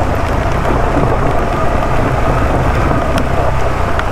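KTM 390 Adventure's single-cylinder engine running with a low, steady hum under a loud, even rushing noise.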